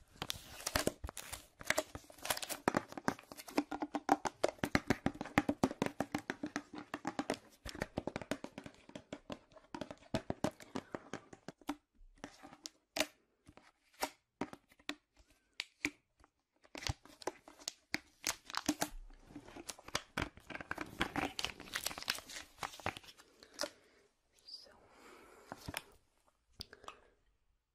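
Close-miked crinkling and crackling from something being handled, dense rapid crackles. They thin out to scattered clicks partway through, turn dense again, and fade to a soft rustle near the end.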